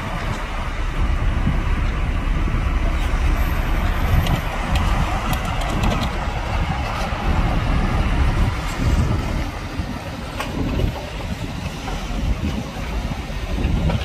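Heavy construction machinery working: a steady, loud engine rumble with a few faint clicks over it.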